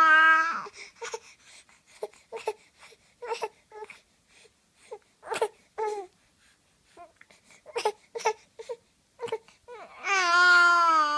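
A five-month-old baby vocalizing: a long, loud held note at the start and another about ten seconds in, with scattered short squeaks and mouth noises in between.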